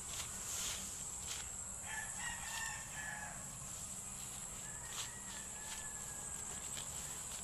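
A rooster crows about two seconds in, and a fainter second call follows around five seconds in. Underneath are a steady high insect drone and the rustle of footsteps through leafy weeds.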